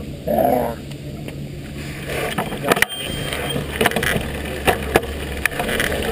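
Downhill mountain bike starting to roll across paving stones: steady tyre noise with many sharp clicks and rattling knocks from the bike over the bumps, beginning about two seconds in. A brief shout just after the start.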